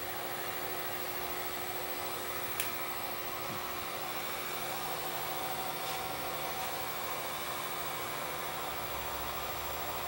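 Hot-air heat gun blowing steadily under a circuit board, preheating it before surface-mount parts are reflowed. A single light click about two and a half seconds in.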